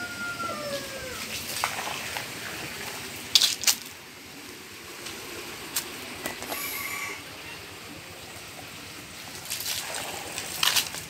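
A long, drawn-out animal call that dips and ends about a second in, followed by a few sharp clicks or snaps, two close together a few seconds in and more near the end, over faint steady background noise.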